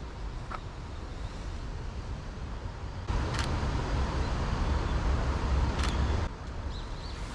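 City street noise with road traffic. About three seconds in, it turns abruptly louder with a heavy low rumble of traffic and two sharp clicks, then drops back about three seconds later.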